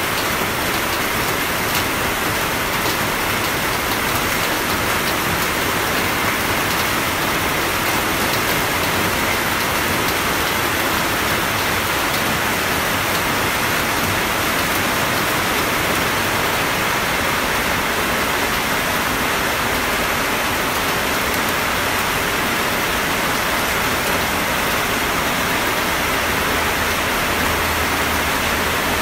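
Steady rain: an even, continuous hiss with no let-up and no thunderclap.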